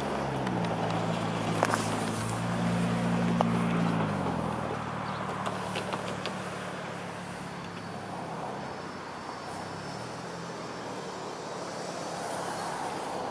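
Diesel-hauled freight train passing. The locomotives' engine drone shifts in pitch and fades after about four seconds, leaving the steady rolling noise of the cars with a few sharp clicks.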